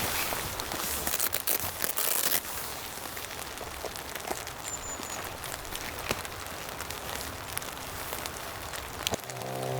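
Steady rain with scattered sharp drop ticks, louder and more crackly for the first two seconds or so. Music comes in near the end.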